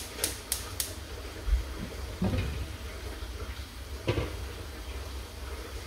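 Gas hob's spark igniter ticking about three times a second, stopping about a second in. Then a dull thump and two clanks as the pan's glass lid is lifted off and the pan is handled on the burner grate.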